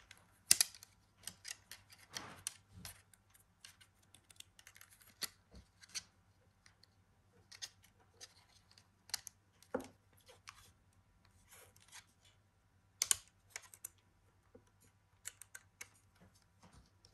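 Plastic tool-less 3.5-inch drive tray of a QNAP TS-453D NAS being handled as a hard drive is mounted in it: irregular clicks and snaps as its side fastening panels are unclipped and pressed back. The loudest snaps come about half a second in and again around 13 seconds.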